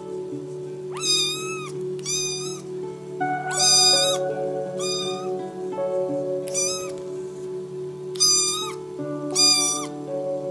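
A kitten mews seven times, each mew short and high-pitched, over background music with held notes.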